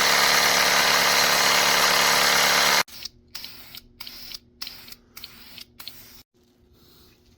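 Spray paint hissing in one loud, steady burst of about three seconds that stops abruptly, followed by several short, much fainter bursts.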